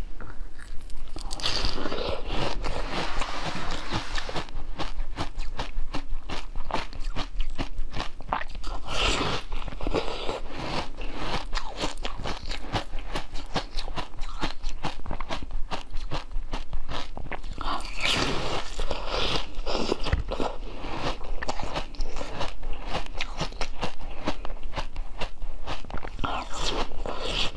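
Close-miked crunchy biting and chewing of a hard frozen white dome-shaped treat: a dense run of crisp cracks, with louder bursts at each fresh bite several seconds apart.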